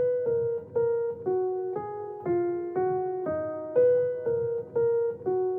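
Background music: a piano-like keyboard playing a simple melody of single notes, about two a second, each one fading away before the next.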